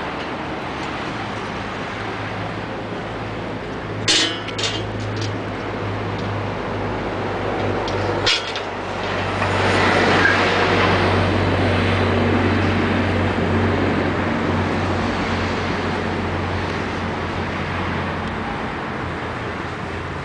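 Street traffic at an intersection: a steady low engine hum from idling vehicles, with a city bus passing and swelling loudest about halfway through. A few sharp clicks or knocks sound about four seconds in and once more about eight seconds in.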